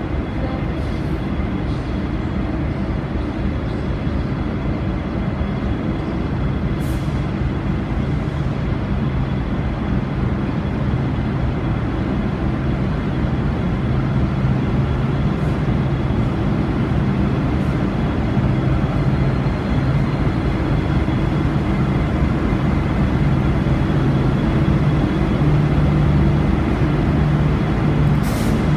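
V/Line diesel train running along the platform, a steady diesel engine drone with rail noise that grows louder about halfway through as the train draws closer.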